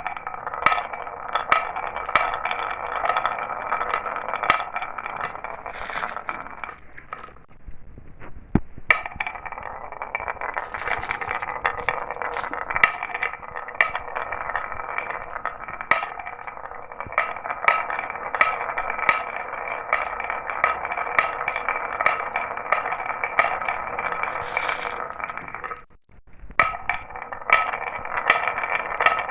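Marbles rolling down a marble run, a steady rolling rattle with frequent sharp clicks as they knock against the track and each other. The rolling briefly dies away twice, about seven seconds in and near the end, then picks up again.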